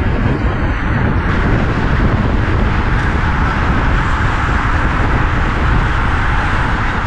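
Wind rushing over the microphone of a handlebar camera on a racing bicycle at about 35–40 mph, a loud, steady rush with deep low buffeting.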